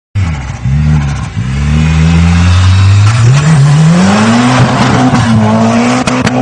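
Sound effect of a car engine revving and pulling away. The engine note wavers low for the first few seconds, then climbs in pitch about three seconds in and holds steady and loud.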